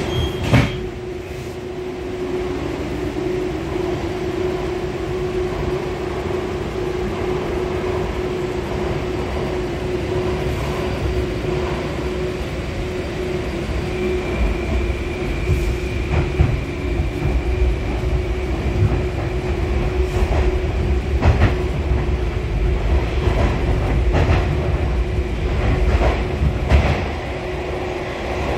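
An 81-725.1 "Baltiets" metro train heard from inside the car as it pulls out of a station and gathers speed. There is one sharp knock about half a second in. Then, from about halfway through, a high whine comes in and the rumble of the running gear swells, with sharp clacks from the rails.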